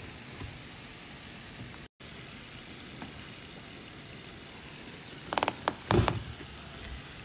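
Deep-frying oil sizzling steadily around banana-and-garri fritters, with a brief dropout about two seconds in. Near the end a quick run of clatters and knocks as the slotted spoon tips a batch of fried balls into a paper-towel-lined bowl.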